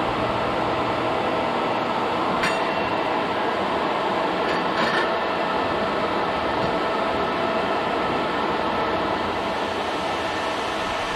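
Bandsaw sawmill running steadily as it saws through a small log, with a couple of faint clinks along the way.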